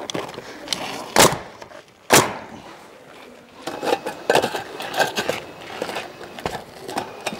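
Bostitch pneumatic coil roofing nailer firing twice, about a second apart, driving nails through the step flashing into the roof. It is followed by a run of lighter clicks and rattles as the sheet-metal flashing and shingles are handled and positioned.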